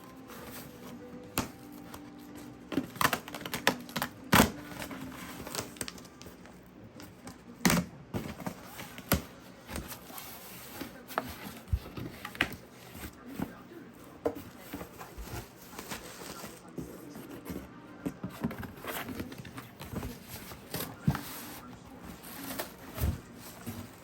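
Cardboard box and packaging being handled and opened: irregular knocks and clicks with rustling and crinkling.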